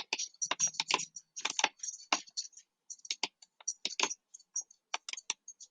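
Irregular clicking and tapping on a computer keyboard and mouse, many quick clicks with short gaps between them.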